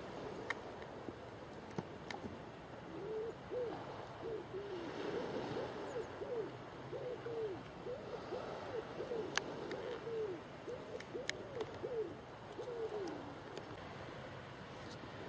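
A bird calling: a run of low hooting notes, each rising and falling, repeated one after another for about ten seconds. Behind them are a steady faint hiss and a few sharp clicks.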